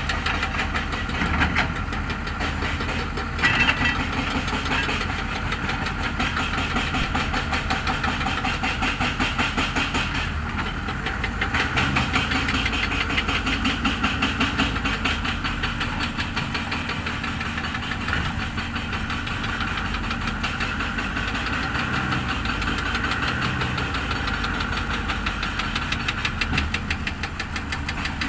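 Heavy vehicle engine running steadily with a fast, even clatter, as a sunken truck is worked free with an excavator. There is a brief louder burst about three and a half seconds in.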